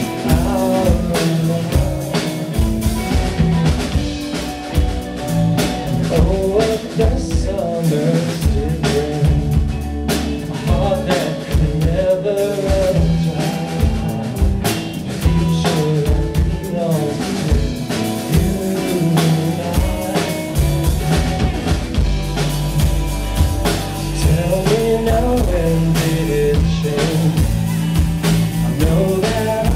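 Live rock band playing through a PA: drum kit, electric bass guitar and electric guitar, with a melody line moving over a steady bass pattern.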